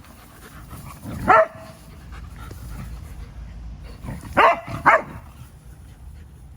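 A dog barking during rough play: one bark about a second in, then two quick barks in succession a few seconds later.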